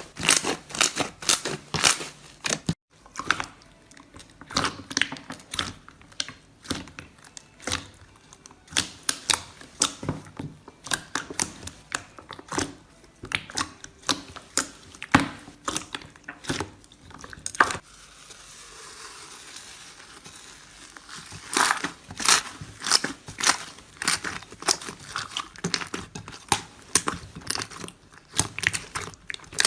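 Slime being squeezed, poked and stretched by hand: a dense run of sticky clicks, pops and crackles, with a softer squishing stretch in the middle.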